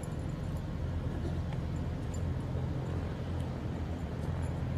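Distant Boeing B-17G Flying Fortress, its four Wright R-1820 radial engines running at low power as it taxis: a steady low drone.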